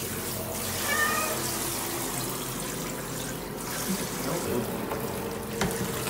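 Water from a handheld shower head spraying steadily onto a cat in a plastic tub. The cat gives one short meow about a second in, and there is a sharp knock near the end.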